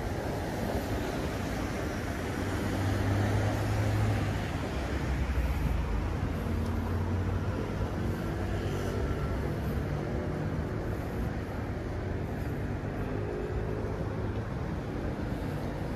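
Road traffic: a steady low rumble of passing cars, swelling louder a few seconds in as a vehicle goes by.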